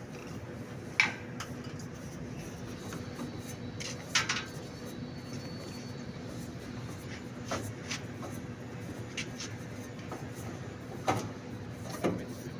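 Scattered clicks and knocks with light rubbing as a truck's air dryer cartridge is worked loose and unscrewed by gloved hands, the sharpest knock about a second in, over a steady low hum.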